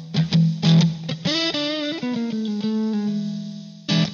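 Intro music: electric guitar playing a quick run of picked notes over a held low note, with a sharp strum near the end.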